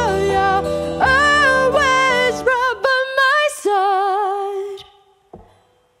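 A woman singing a melody with vibrato over acoustic guitar and band. About three seconds in, the accompaniment drops away and she holds one long note that fades out, leaving a few soft taps.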